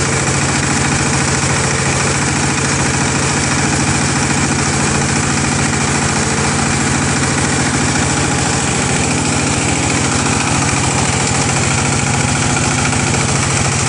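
Diesel engine driving a flat-die pellet mill, running steadily under load as the mill presses biomass into pellets, with a fast, even firing beat over a broad mechanical noise.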